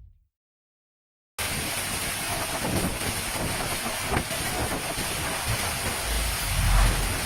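Steady hiss of a heavy hailstorm downpour, starting suddenly after about a second of silence, with faint scattered impacts; a low rumble of wind on the microphone swells near the end.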